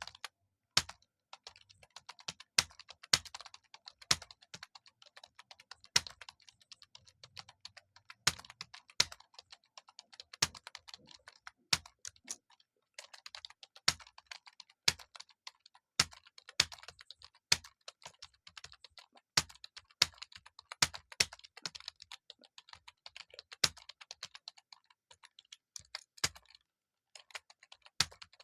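Computer keyboard being typed on steadily: a quick run of key clicks with louder single strokes every second or so, pausing briefly about twelve seconds in and again near the end.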